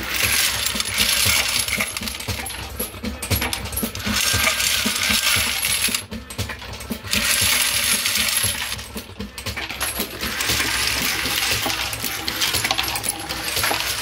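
Mark 7 automated progressive reloading press running at speed, a rapid steady clatter of metal with nickel-plated brass cases clinking as they are thrown down the chute; it eases off briefly twice.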